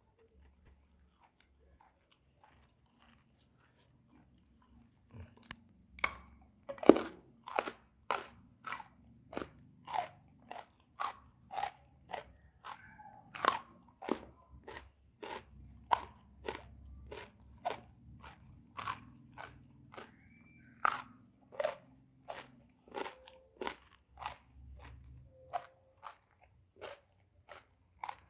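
Close-up chewing of crisp raw vegetables, a steady run of crunches at about two a second, starting after about five seconds of near silence.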